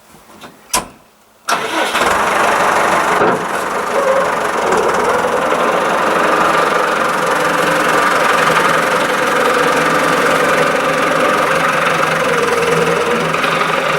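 A sharp click, then about a second and a half in an old McCormick tractor's engine comes in suddenly and runs steadily.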